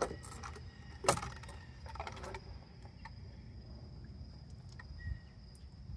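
Clicks and light knocks of a 2010 Honda Odyssey's plastic fuel pump module being handled and turned as it is worked out of the fuel tank. The sharpest click comes about a second in, and a dull knock comes near the end.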